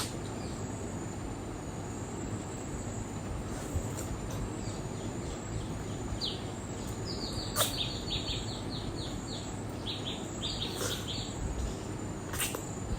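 A bird chirping in a quick run of short, repeated chirps from about six seconds in until about eleven seconds, over a steady background hiss. A few sharp clicks fall here and there.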